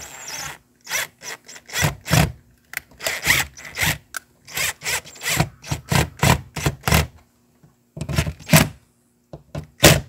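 Cordless DeWalt drill driving screws into the mounting flange of an RV's city water inlet, run in many short pulses about three a second, with a pause a little past halfway before a few more.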